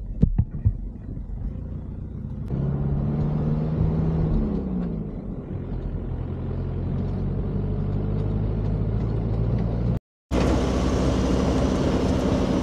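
A 4x4 jeep's engine running as it drives over rough, sandy ground, with a few sharp knocks in the first second. The engine's pitch slides about four seconds in. The sound cuts out for a moment near the end, then goes on as a steady vehicle drone.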